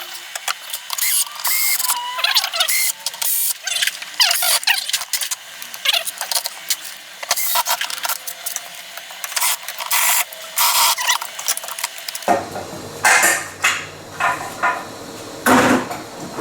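Hand ratchet clicking in quick runs with metallic tool clinks as the bolts of a CVT clutch cover are run in; the sound changes about twelve seconds in.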